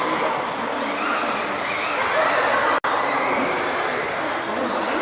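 Several electric 1:10 RC off-road buggies racing, their motors whining and repeatedly rising and falling in pitch as they accelerate and slow for corners. The sound cuts out for an instant a little before the middle.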